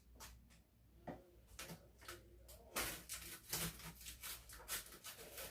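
Faint scraping and light knocks from a cardboard shipping box being handled and cut open. The scrapes grow denser and louder from about three seconds in.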